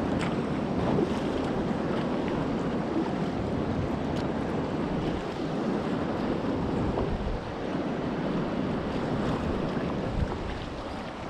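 River rapids and a small waterfall rushing steadily.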